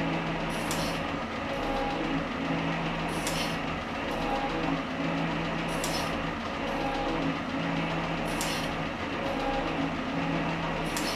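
Värnamo metal shaper running, its ram stroking back and forth as a carbide insert takes a final finishing pass at the finest feed across the hardened face of an anvil. A steady motor hum, with a sharp clatter repeating about every two and a half seconds, once per stroke of the ram.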